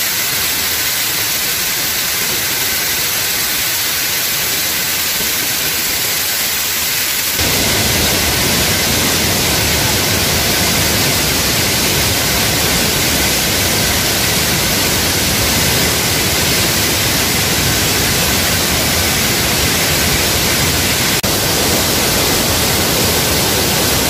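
Steady rushing of a terraced waterfall's cascading white water, loud and even. About seven seconds in it abruptly becomes deeper and fuller.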